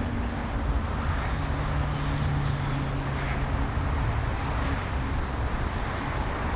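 Jet airliner engines running at an airport, a steady loud rush with faint low hums, one of them held for a few seconds in the middle.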